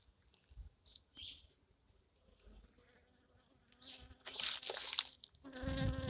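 Honey bees buzzing close to the microphone: a short buzzing pass about four seconds in, then a louder steady hum about five and a half seconds in that dips slightly in pitch as it ends.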